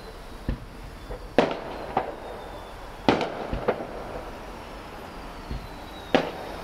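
Aerial firework shells bursting overhead: a string of sharp bangs at uneven intervals, the loudest a little past three seconds in.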